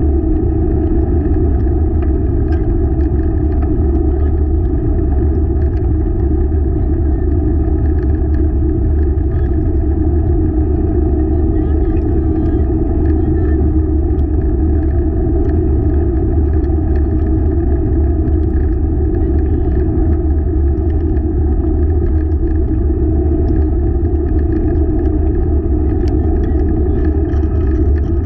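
Steady rumble of a four-dog dryland rig rolling along the trail, with wind on the microphone. A brighter hiss joins near the end.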